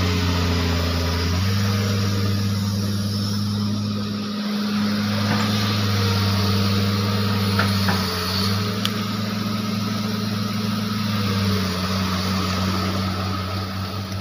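Hitachi hydraulic excavator's diesel engine running steadily while working, its note stepping down and back up a few times as the machine moves. A few faint short knocks come around the middle.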